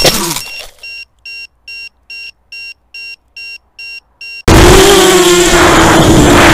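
FPV quadcopter's Cobra 2206 2100kv brushless motors cut out in a crash, their whine dying away within half a second. Then a small electronic beeper gives about nine short high beeps, two to three a second, until the motors' loud steady whine comes back suddenly about two-thirds of the way through.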